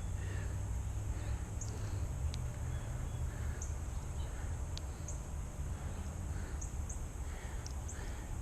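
Outdoor summer ambience: a steady high insect buzz with a dozen or so short bird chirps scattered through it, over a low rumble.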